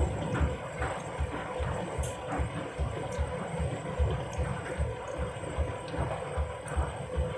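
Candy Grand'O Vita front-loading washing machine running an empty rinse cycle: a steady machine hum with irregular low thuds, a couple to a few a second, as the empty drum turns and flushes out leftover fabric softener.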